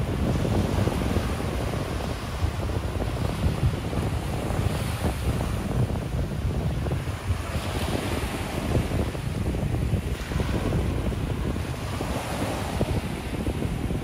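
Ocean surf breaking and washing up the beach, with the hiss of the wash swelling a few times, over a steady low rumble of wind on the microphone.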